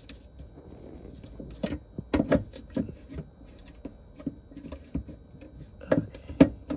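Plastic clicks and knocks as a livewell aerator pump cartridge is pressed and twisted into its housing to lock it in. There is a cluster of clicks about two seconds in and two louder knocks near the end.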